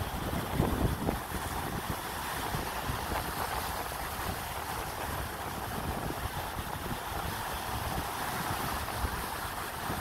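Ocean surf breaking and washing up a sandy beach, with wind buffeting the microphone in gusts, strongest about a second in.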